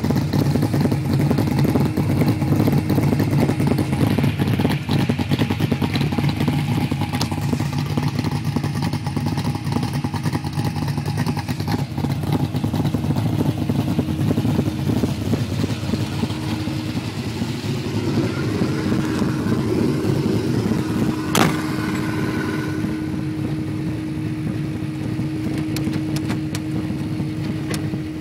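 Holden 308 V8 with a Crane 280 solid-lifter camshaft idling steadily with a rough, lumpy idle. A single sharp click sounds about three-quarters of the way through.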